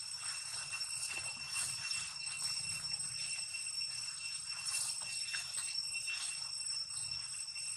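A steady high-pitched ringing tone with two fainter higher overtones, over faint scratchy rustling.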